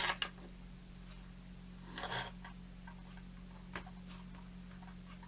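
A few small clicks, one sharper click and a brief rustle from handling a circuit board and pin header, over a steady low hum.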